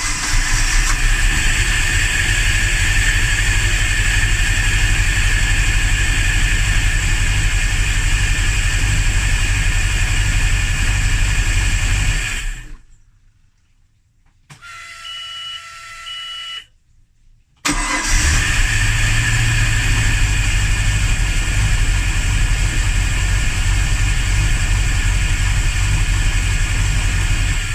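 BMW 325xiT's inline-six being cranked over by the starter on a hard start, a long crank of about twelve seconds, a pause, then a second long crank that stops near the end. The fuel pressure is good, so the owner suspects a spark or timing fault. In the pause, a quieter hum with a few steady electronic tones sounds for about two seconds.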